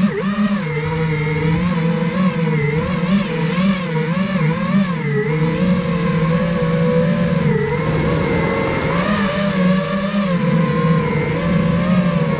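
iFlight Nazgul Evoque F5 FPV quadcopter's four brushless motors and propellers whining, heard close up from the onboard GoPro. The pitch wavers up and down continually as the throttle changes, with no break.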